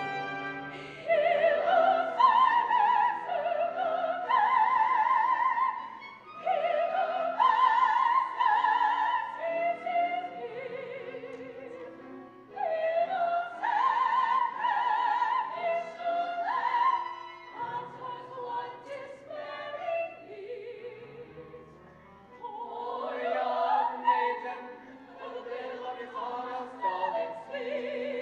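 Live operatic singing from a stage musical: a high voice sings phrases of long held notes with wide vibrato, with short breaths between the phrases.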